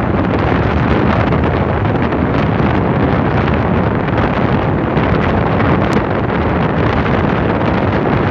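Steady heavy wind rush buffeting the microphone of a small motorcycle riding at road speed, with the engine and road noise blended into it.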